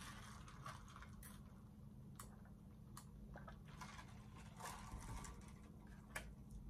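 Near silence with faint, scattered clicks and ticks: small mouth and utensil noises of someone sipping a drink through a straw and eating.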